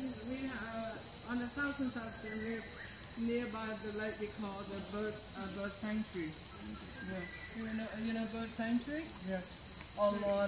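Loud, steady high-pitched insect drone holding two even tones, the typical continuous calling of tropical forest insects, with a faint murmur underneath.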